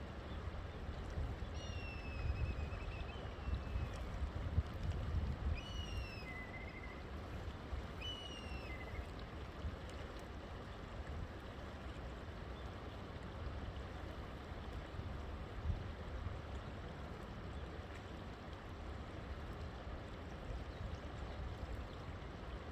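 River water flowing steadily, with a bird calling several times in the first nine seconds or so: short whistled notes that fall in pitch.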